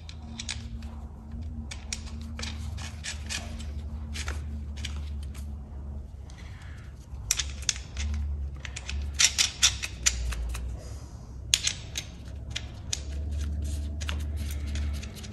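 Light metal clicks and clinks of small zinc-plated parts being handled and fitted by hand onto a car brake booster, coming in quick clusters that are busiest past the middle, over a steady low hum.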